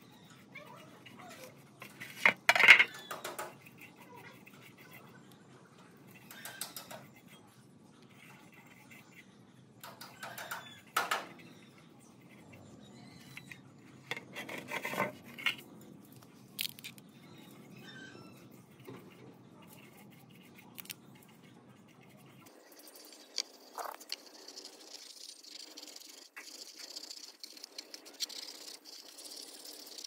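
Small brush dabbing and scrubbing liquid onto an antique table fan's metal blade and dipping into a plastic cup: scattered light taps and scrapes, with a few louder knocks, the loudest about two and a half seconds in. About three-quarters of the way through the sound thins and a faint steady hiss comes in.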